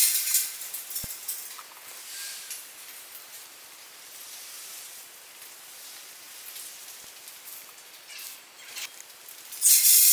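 A quiet stretch of faint high-pitched hiss with a few light clicks, after a loud shaker-like rattling fades at the start; the loud rattling comes back near the end.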